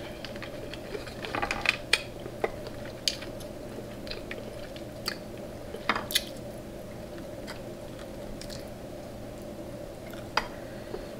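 Close-miked mouth sounds of a person eating king crab meat dressed in butter sauce: chewing with wet smacks and sharp clicks at irregular moments, several around the first few seconds and around six seconds, and one near the end.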